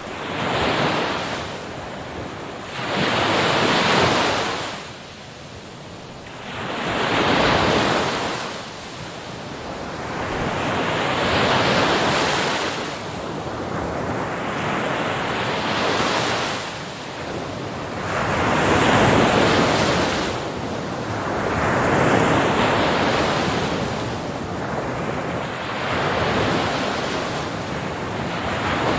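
Ocean waves washing in and drawing back, one swell of surf noise every three to four seconds.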